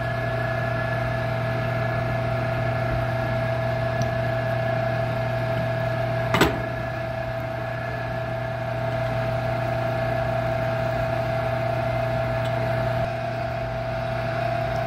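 Metal lathe running steadily, its motor and spindle giving an even hum with a constant whine, while a drill bit held in the tailstock chuck is fed into the spinning part. A single sharp clack comes about six and a half seconds in.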